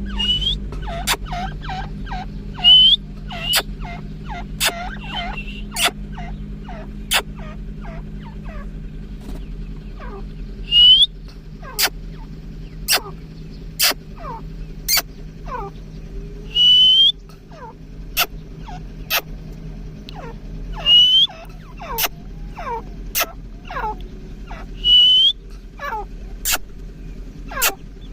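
Several grey francolins (teetar) calling together: sharp clicking notes about once a second, many short falling whistled notes, and every few seconds a loud shrill upswept note.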